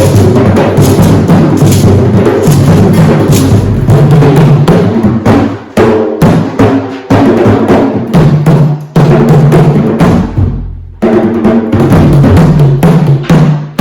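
Hand drums played together in a fast, dense rhythm. The playing breaks off briefly a few times and stops for about a second before starting again.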